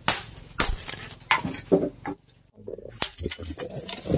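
Hand hammer striking a sword blade on a steel anvil stake: two ringing blows about half a second apart near the start, then lighter scattered knocks, a brief lull, and another blow near the end.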